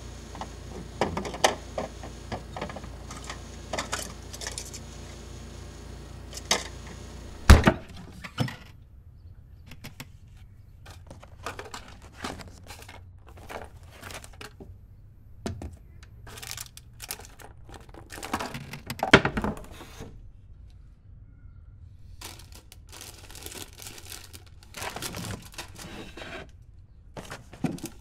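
Objects being handled inside a refrigerator: a run of knocks, clinks and crinkling rustles, with a loud thunk about seven and a half seconds in and another near the end of the second third.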